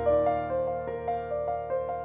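Background piano music: a repeating pattern of notes, about three a second, over held low bass notes.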